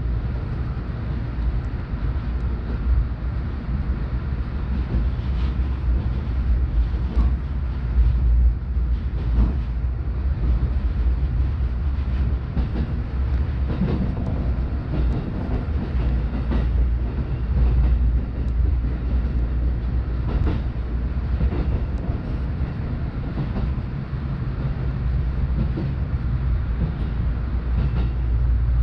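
JR Joban Line commuter train running, heard from inside the carriage: a steady low rumble with scattered clicks of the wheels over the rail joints.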